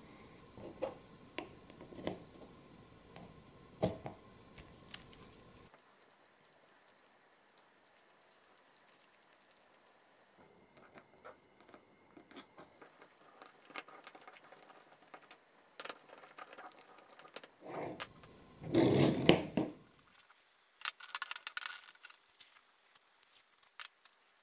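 Hands fitting ball-bearing wheels onto the metal axle mounts of a small wooden toy car: scattered light clicks and taps of metal parts against wood and the cutting mat, with a louder rubbing scrape about three quarters of the way through.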